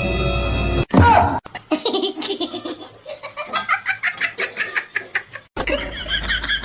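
Someone laughing hard in a long run of quick repeated laughs. It comes right after a short, loud cry that falls in pitch about a second in.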